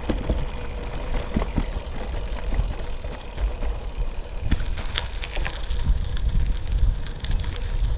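Bicycle rolling along a trail: a steady low rumble from tyres and air moving past, with scattered small clicks and rattles from the bike.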